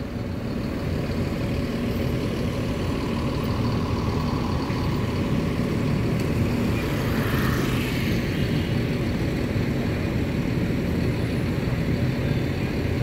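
Diesel engine of a Mercedes-Benz coach idling steadily.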